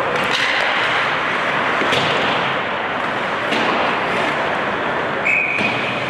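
Ice hockey play: a few sharp clacks of sticks and puck over the rink's steady noise. About five seconds in, a referee's whistle blows a short steady blast that stops play.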